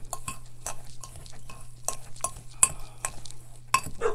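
Metal fork clinking and scraping against a glass bowl while mashing cold butter cubes into a dry oat-and-sugar crumble topping. It makes irregular sharp clicks, about three a second.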